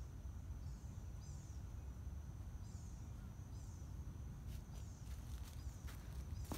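Woodland ambience: a steady high insect drone and a bird's short, high chirps repeating every second or so over a low rumble. In the second half, footsteps crunch on the leaf-littered dirt trail.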